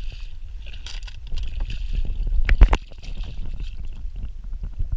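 Hooked bass thrashing and splashing at the water's surface beside the boat, with its loudest burst of splashes and knocks about two and a half seconds in. Low wind rumble on the microphone underneath.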